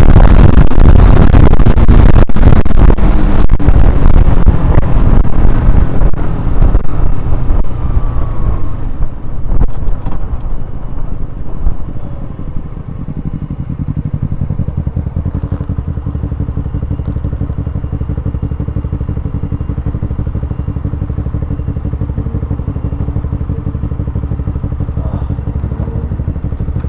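Honda CBR125R's single-cylinder engine running with loud wind rush over the camera microphone, easing off over the first twelve seconds or so as the bike slows. The engine then idles steadily.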